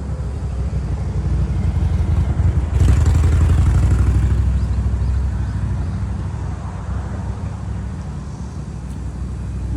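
A motor vehicle's engine running steadily with a low hum, getting louder about three seconds in and then easing off a little.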